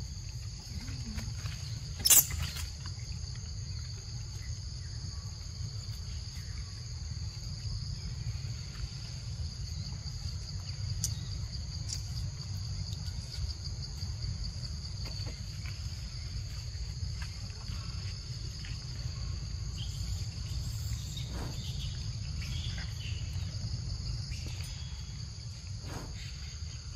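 Steady high-pitched chorus of forest insects chirring without a break, over a low rumble. A single sharp click about two seconds in is the loudest sound.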